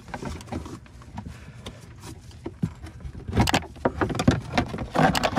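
Plastic wheel-arch liner of a Mercedes C230 being worked loose and pulled out of the front wheel well: rustling, scraping and small knocks of plastic against the body, with louder bursts about three and a half seconds in and again near the end.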